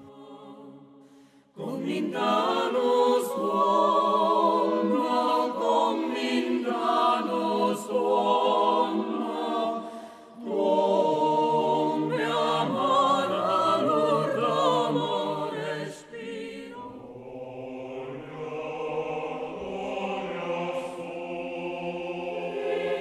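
Choir singing, coming in about a second and a half in and growing quieter over the last several seconds.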